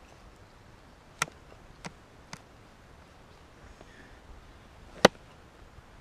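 Cold Steel Axe Gang hatchet chopping into a log: a sharp blow about a second in, two lighter knocks shortly after, and the loudest blow about five seconds in.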